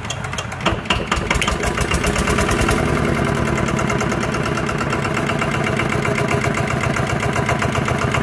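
Mitsubishi SD85 8 hp single-cylinder diesel engine picking up speed about a second in, from slow, separate beats to a fast, even beat, then running steadily.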